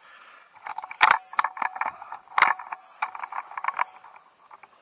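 Steel-wool soap pad scouring rust off a bicycle's steel crank and chainring sprocket: irregular metallic scraping and clinking with a light ringing, and two sharper knocks about one and two and a half seconds in.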